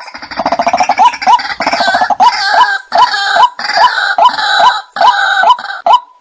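White-breasted waterhen calls played as a bird-lure recording: a rapid rattling chatter in the first second and a half, then loud repeated hooked notes about twice a second with a higher second series layered over them.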